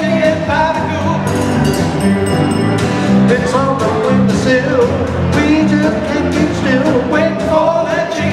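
Live jug band playing an instrumental break: strummed acoustic guitar, electric guitar, electric bass and snare drum keep a steady beat under a bending melodic lead line.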